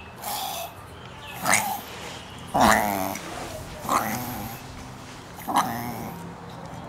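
Chihuahua reverse sneezing: five loud, harsh gasping bursts roughly a second apart, the loudest about three seconds in. Reverse sneezing is a spasm of the soft palate and throat in which the dog pulls air in hard through its nose.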